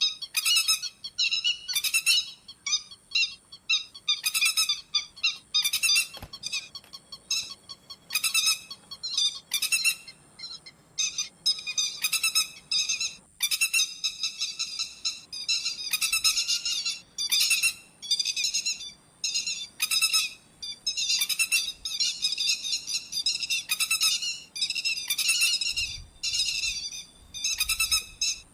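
Grey-headed lapwing calls: bursts of sharp, high notes repeated rapidly, one burst every second or so, with a faint steady high whine behind them in the first half.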